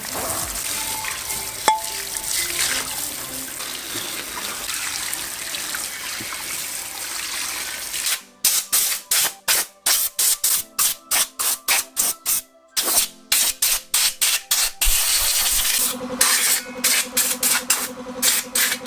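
Wet sandpaper rubbing over metal engine parts with water running, then from about halfway through a fast run of short back-and-forth sanding strokes, about three a second. Faint background music plays underneath.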